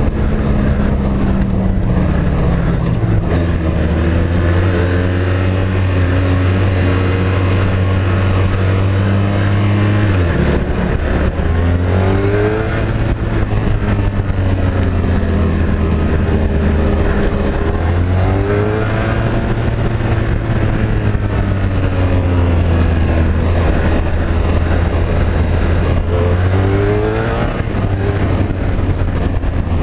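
Honda VFR1200F's V4 engine running under way at highway speed, heard from the bike itself. The engine note holds steady, then dips and climbs again several times as the rider eases off and accelerates.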